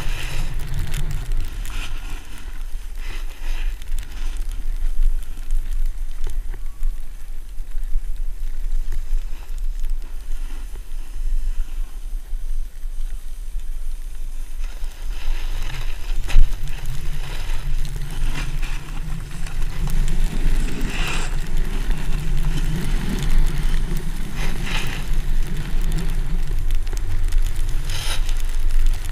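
Snowboard sliding and scraping over packed snow while wind buffets the camera's microphone as a low rumble. The rumble eases for a stretch and builds again in the second half, where there are sharper scrapes of the board's edge, and a single sharp knock comes a little past halfway.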